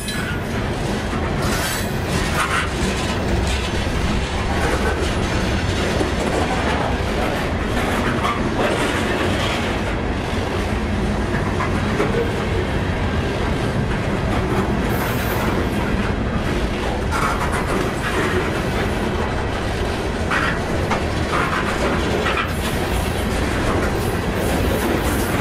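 Loaded CSX open-top hopper cars of a freight train rolling past close by: a steady rumble of steel wheels on the rails, with occasional clicks of wheels over rail joints.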